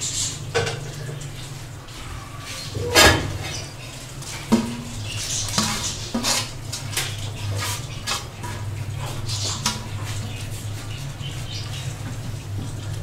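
Metal spoon clinking and scraping against an aluminium cooking pot as rice is stirred into simmering stock, with a loud metallic clank about three seconds in and scattered clicks after, over a steady low hum.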